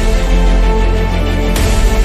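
Background music with sustained tones over a deep bass; a new chord comes in about one and a half seconds in.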